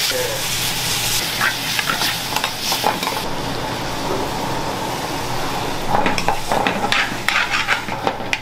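Curry frying and sizzling in steel pans on a gas range, with metal ladles and tongs stirring and scraping against the pans. The sizzling hiss is loudest for the first few seconds, when the pan flares up, and metal clinks come thicker from about six seconds in.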